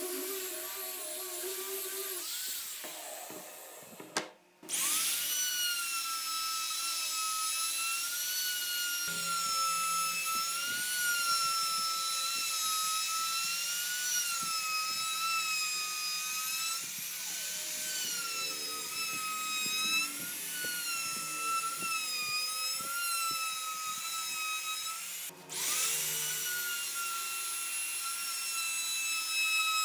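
A small handheld rotary sander runs on wood for the first few seconds. After a short break a compact trim router spins up and runs with a high whine, its pitch dipping and recovering again and again as the bit cuts into the wood. It cuts out briefly a few seconds before the end and spins back up.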